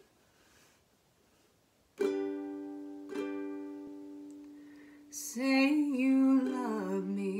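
Ukulele chord strummed about two seconds in and again a second later, left to ring and fade. Near the end a woman's voice comes in, singing a slow, wavering line over the ringing chord.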